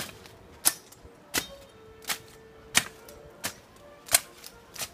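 A blade chopping into bushes and brush in steady, rhythmic strokes: a sharp chop about every two-thirds of a second, eight in all.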